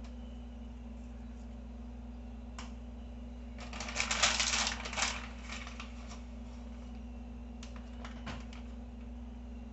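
A burst of rapid crackling and rustling about four seconds in, then a few lighter crackles near eight seconds, from hands handling broccoli florets; a steady low hum runs underneath.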